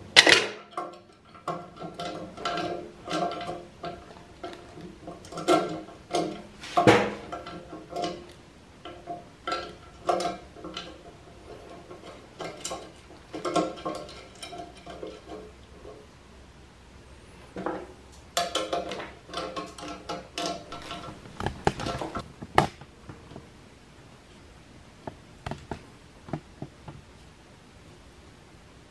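A small socket ratchet clicking in short runs, with metal clinks and knocks, as the bolts holding a steel tool rest to a bench grinder are snugged up. The clicking runs come in clusters over the first twenty seconds, and there are two louder knocks a little later.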